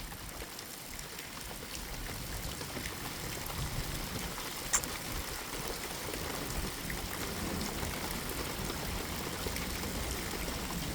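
Steady rain falling in a thunderstorm, a steady hiss that grows a little louder over the first few seconds, with one sharp tick about five seconds in.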